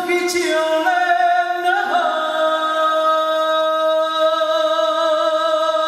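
Slow music of long held notes. The pitch steps twice in the first two seconds, then a single note holds for about four seconds.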